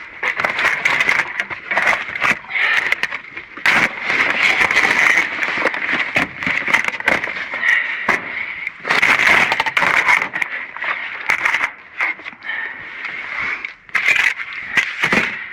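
Cardboard boxes and debris being shifted and handled inside a dumpster: continuous crackling and rustling with many scattered knocks.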